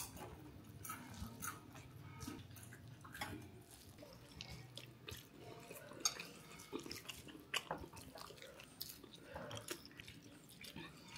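Faint chewing of a mouthful of lemon rice and aviyal, with scattered soft wet mouth clicks.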